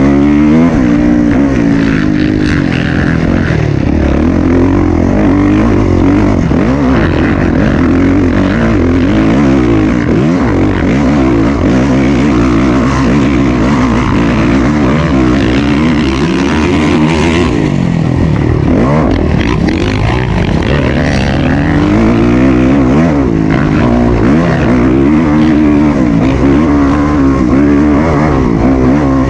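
Off-road motorcycle engine running, its pitch rising and falling continuously as the throttle opens and closes.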